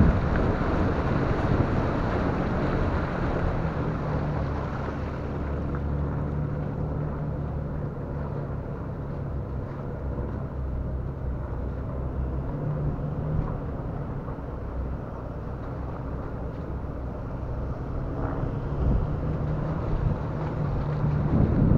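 A 4x4's engine running steadily at low revs as it wades out of flood water onto wet sand, with water churning around the vehicle at the start and wind buffeting the microphone.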